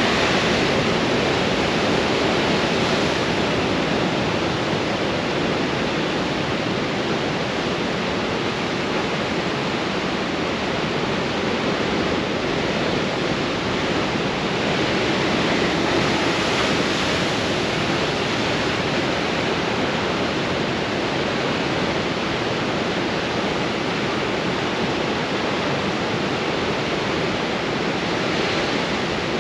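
Storm surf breaking on rocks in strong wind: a continuous rush of churning white water with no pauses, swelling a little now and then as waves hit.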